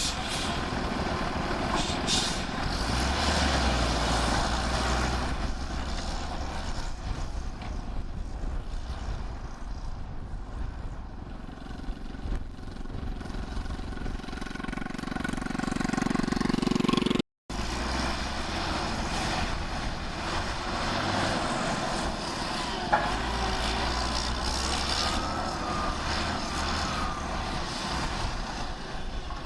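Heavy earthmoving machinery engines running steadily under load, with a brief cut in the sound a little past halfway.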